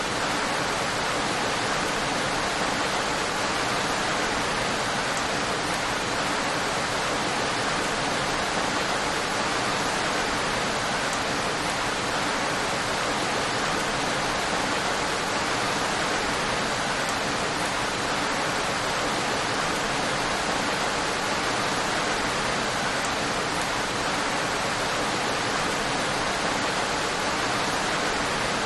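Steady, even rain: a continuous hiss of heavy rainfall with no distinct drops, thunder or changes.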